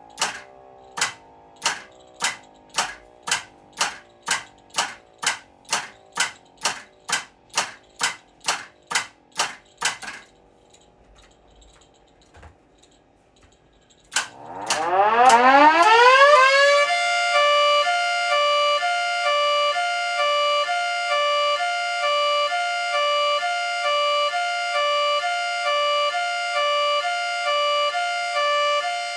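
Miniature model Federal 3T22 siren. For about ten seconds sharp clicks repeat roughly twice a second while faint siren tones fall away, followed by a few seconds of near quiet. About fourteen seconds in, the siren winds up from low pitch to full speed and sounds a hi-lo, its chord stepping between two pitches about every three-quarters of a second.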